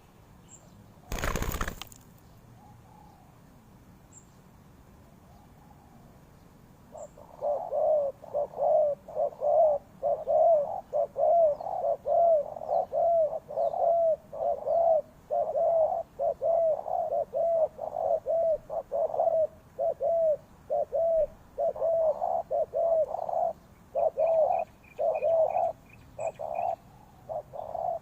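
Spotted dove cooing: a long, rapid run of low, rounded coos, about two a second, beginning around seven seconds in. It is preceded by a brief, loud rustling noise about a second in.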